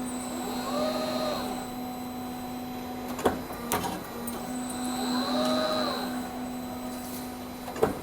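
Garage door track roll forming machine running: a steady hum, with a motor whine that rises and falls twice, about four and a half seconds apart, and a few sharp metallic clacks between them.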